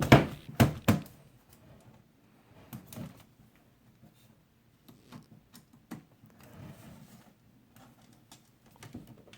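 Clicks and knocks from handling a laptop's plastic case and unscrewing its screws with a small screwdriver: two loud knocks within the first second, then scattered faint clicks and taps.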